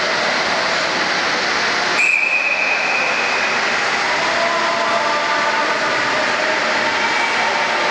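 Steady din of an ice-rink crowd, with a sharp knock about two seconds in followed by a brief high steady tone.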